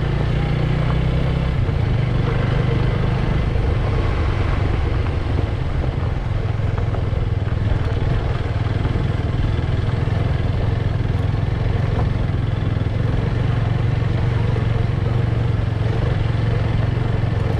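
Motorbike engine running steadily while riding, with road and wind noise over it; the engine note shifts about a second and a half in.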